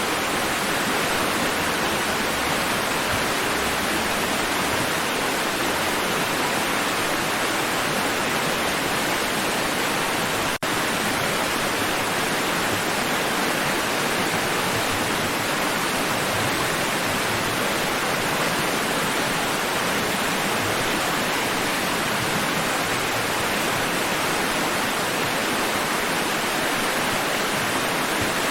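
Steady, even rushing of water with no rise and fall of separate waves, broken once by a split-second dropout about ten seconds in.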